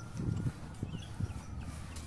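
Footsteps of a person walking on pavement: a few soft low thuds. A distant siren's tone fades out about half a second in, and small birds chirp.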